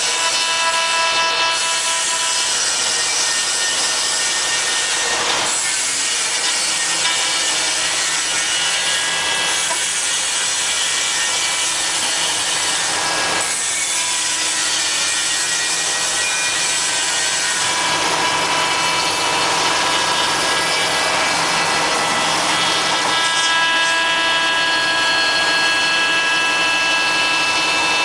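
Five-axis CNC router's spindle whining at high speed as its bit carves a wooden workpiece: a steady cutting hiss under several held tones, whose mix shifts a few times as the tool moves along its path.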